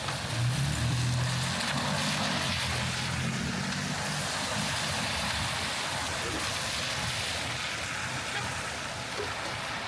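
Steady rain hissing on the street, with a motor vehicle's engine humming low for the first three seconds or so before it fades out.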